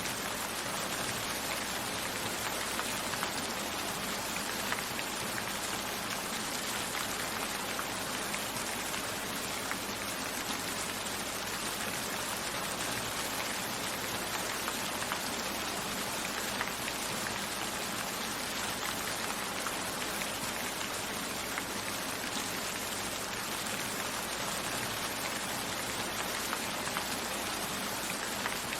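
Steady rain falling, with scattered drops pattering on a surface and no thunder.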